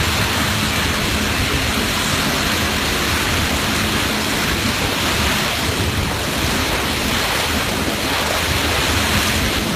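Steady rush of wind buffeting the microphone mixed with the churning wake water behind a moving wakeboat, with a faint steady low hum underneath.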